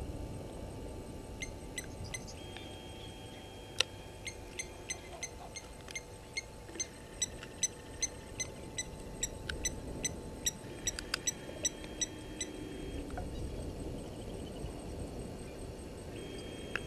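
Short, high, squeaky animal calls repeated irregularly, about two to three a second, thinning out after about twelve seconds. One sharp click comes about four seconds in, over a faint steady hum.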